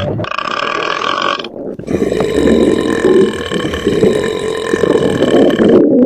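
Loud burps: a short one, then after a brief pause a long drawn-out burp lasting about four seconds.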